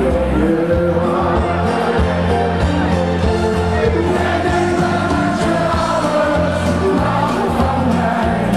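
Live cover band playing amplified dance music with singing over a heavy, steady bass beat.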